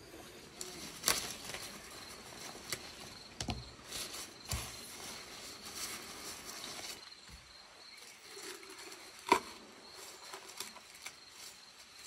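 Hands working marinated raw beef on a wooden board, with soft wet rubbing, clicks and a couple of light knocks. Then fresh leafy branches rustle as they are handled, with one sharp click a little over nine seconds in.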